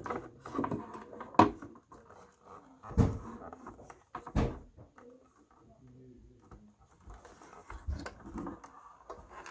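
Handling noise from taking the radio apart: a few sharp knocks and clicks, about four of them spread out, with quieter rustling and scraping between.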